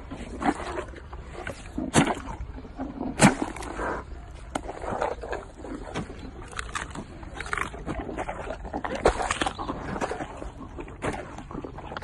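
A hippopotamus crunching and chewing apples, with irregular wet cracks and smacks from its mouth. The sharpest come about two and three seconds in.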